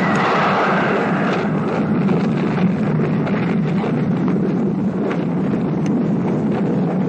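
Steady, loud rumble of a spacecraft's engines at launch, a film sound effect. A rushing hiss on top eases off over the first second or so.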